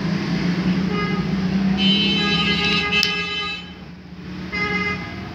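Street traffic: a vehicle engine drones, then fades about three and a half seconds in, while a horn toots briefly about a second in, sounds longer from about two seconds in, and toots again near the end. A single sharp click comes about three seconds in.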